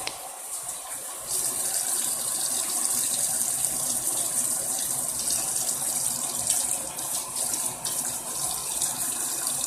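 Water tap running into a sink in a steady stream, getting louder a little over a second in.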